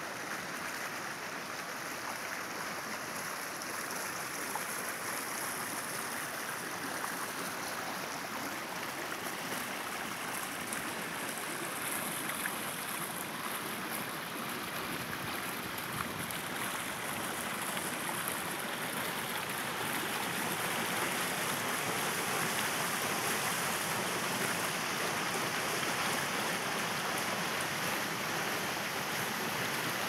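Steady rushing of a river running over rock and pouring down a waterfall, growing a little louder in the second half.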